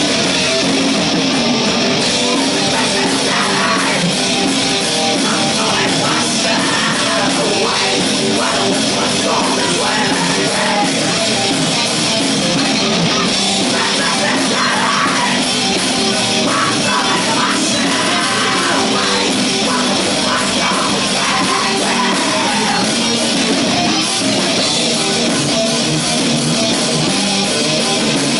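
Metal band playing live: electric guitars and drums, loud and dense with no breaks.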